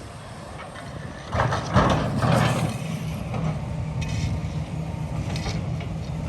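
Heavy demolition machine's diesel engine running steadily. About a second in, a loud crash and clatter of falling building debris lasts a second or two while the engine keeps running.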